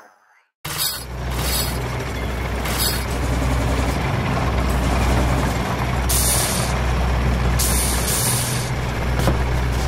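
A heavy diesel vehicle's engine running steadily, a low hum, starting about half a second in, with a few short hisses of air about six, eight and ten seconds in.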